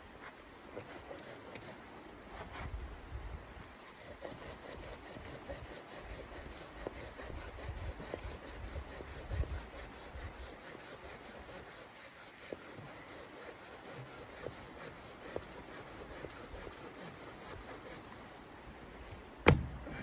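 Small red-handled folding saw cutting through a dead branch on the ground, with steady back-and-forth rasping strokes through the wood. Near the end comes one loud, sharp crack, the loudest sound.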